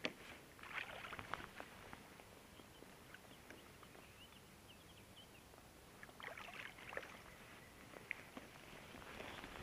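Water splashing and sloshing in short bursts as a hooked fish is scooped into a landing net beside a float tube: once about a second in, again around six seconds in, and near the end.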